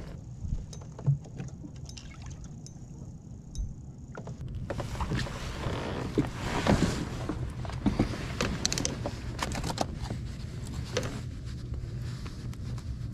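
Water splashing and sloshing around a fishing kayak, then handling knocks and clicks as a just-landed largemouth bass is held and unhooked. The sound gets louder about five seconds in.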